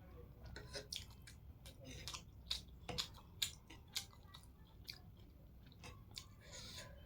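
Close-up mouth sounds of a person eating hakka noodles: irregular wet chewing and lip smacks with sharp little clicks, some of them louder between about two and four seconds in.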